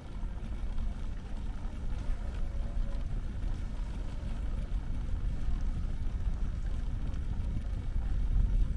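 Wind rumbling steadily on the microphone of a camera riding along on a moving bicycle, a low rough noise that swells slightly near the end.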